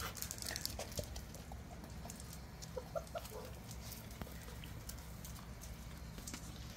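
Weimaraner puppies giving small high squeaks a few times, most of them around the middle, among scattered light clicks and scuffs of their paws on concrete.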